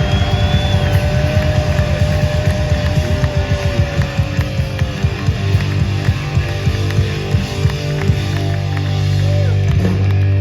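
Live heavy rock band at full volume: distorted electric guitar and bass holding chords over rapid drumming and cymbal crashes, with a guitar bending notes.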